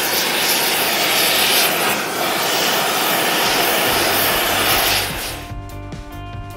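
Gas torch flame hissing steadily as it heats a steel axle red-hot for bending. About five seconds in, the hiss fades out and music with a steady beat takes over.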